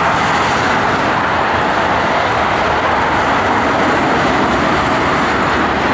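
Jet engines of a Boeing 747-8F freighter on its landing approach, heard as a steady, even rushing noise with a low rumble underneath.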